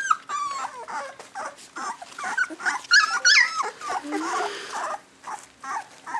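Young puppies whimpering and yipping: many short, high squeaky calls that bend in pitch, loudest in a cluster about three seconds in.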